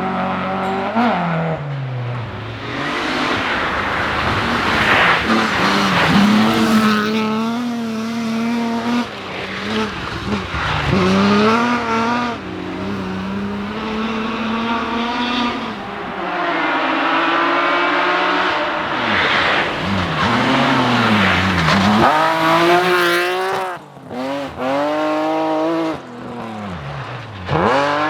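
Rally car engines at full throttle on a special stage. The pitch climbs hard through the gears and drops sharply on lifts and downshifts, again and again, and the sound fades briefly before another engine comes in near the end.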